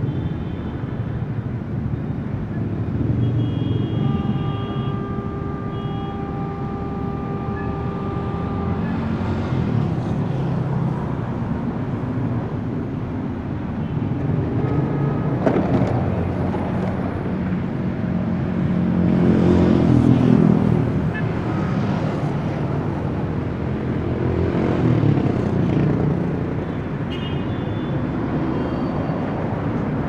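Fairly heavy city street traffic: a steady rumble of car and motorbike engines and tyres. Louder vehicles pass about twenty seconds in and again around twenty-five seconds. A long steady high tone holds from about four to nine seconds in.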